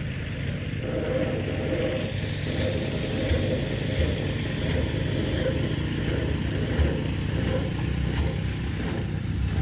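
A motor vehicle running steadily, a continuous low engine and road rumble.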